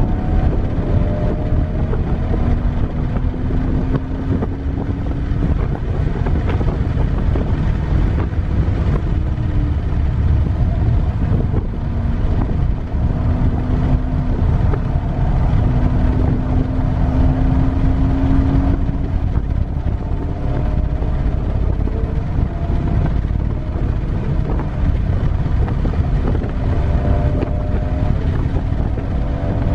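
BMW 330Ci ZHP's straight-six engine pulling hard on track, its note climbing slowly in long stretches and dropping back between them, under heavy wind noise and road rumble.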